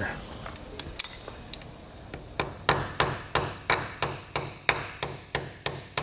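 Small ball-peen hammer tapping a knurled pin into a BMW E36 sunroof cassette part: a few light, scattered taps, then from about two seconds in a steady run of about three sharp, ringing metallic taps a second.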